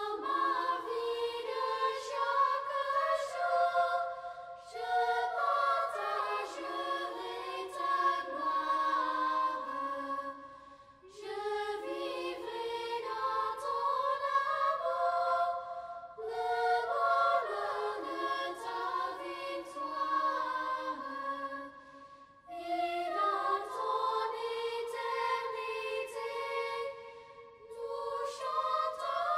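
Choir singing a hymn, several voices moving together in phrases of about five seconds with short breaks between them.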